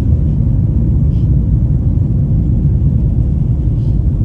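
Jet airliner cabin noise during takeoff: a loud, steady low rumble of the engines and rushing air.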